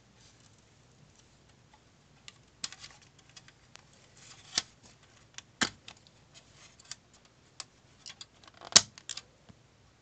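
Plastic housing of a First Alert SA67D smoke detector being handled and its cover put back on: a run of small clicks and knocks, the loudest near the end.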